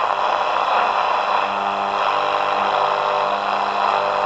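Philips BX680A valve radio's loudspeaker giving out a steady hiss of static with a few faint steady tones under it, the sound of the set tuned between stations.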